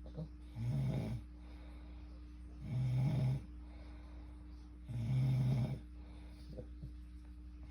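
A sleeping person snoring: three low snores of about a second each, roughly two seconds apart, with a steady low hum underneath.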